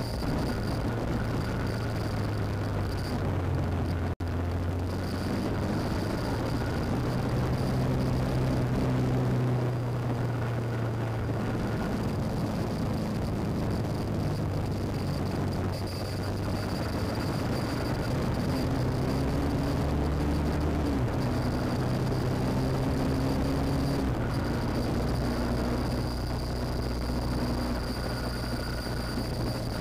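BMW R1150GS Adventure's boxer twin engine running as the motorcycle is ridden, its pitch stepping up and down with throttle and gear changes, over wind noise.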